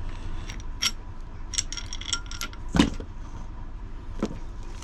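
Metal tools and heavy cable lugs being handled: sharp clicks and short ringing clinks, with a louder knock a little under three seconds in and another near the end, over a steady low hum.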